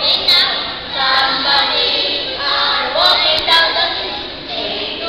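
A group of children's voices singing together, with a few short sharp clicks near the start and about three seconds in.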